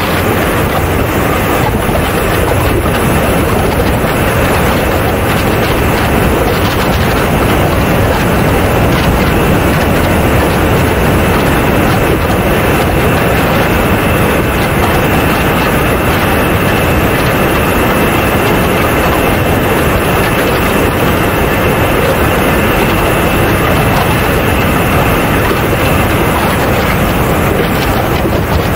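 Steady rush of airstream over a camera mounted under the belly of a Mibo A-10 Warthog model jet in flight, with a thin, steady high whine from the model's engines.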